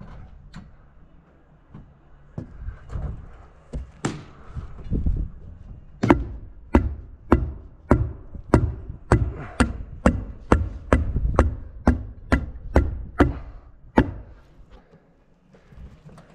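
Hammer blows on OSB roof sheathing through the underlayment: a few scattered knocks and some handling, then a steady run of about eighteen sharp strikes, roughly two a second, stopping about two seconds before the end.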